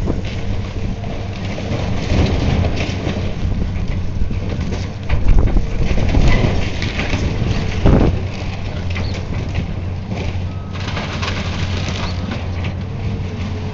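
Heavy demolition machine's diesel engine running steadily while it breaks up the building, with irregular crunching and crashing of debris. The crunching grows louder around five to seven seconds in, and a heavy crash comes about eight seconds in.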